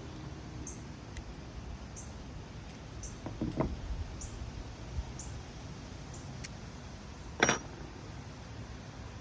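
Faint knocks and handling noise about three seconds in, then a single sharp clink with a brief ring at about seven and a half seconds, over a steady low hum and a faint tick about once a second.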